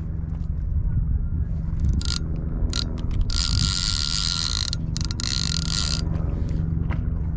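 Small outboard motor running steadily under way, with a fishing reel's ratchet clicker rasping in bursts as line pays out, the longest from about three to six seconds in.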